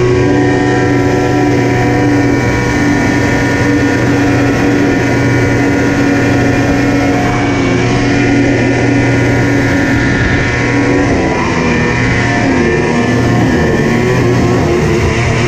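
Yamaha SXR snowmobile's 700 triple two-stroke engine running at steady high revs as the sled skims across open water, over the rush of spray beneath it. The engine note dips and climbs again about twelve seconds in.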